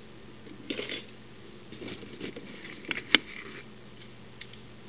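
Small metal lock-picking tools, tension bars and picks, clinking and rattling as they are handled, with a rustle just under a second in. A sharp click about three seconds in is the loudest sound.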